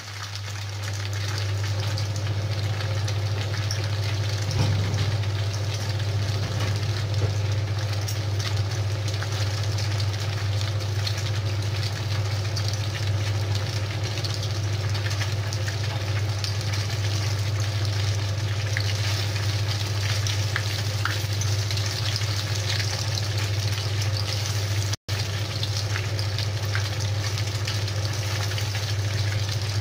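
Breaded milk fingers deep-frying in a pan of hot oil: a steady sizzle with small crackles, over a loud, steady low hum. The sound drops out for an instant about five seconds before the end.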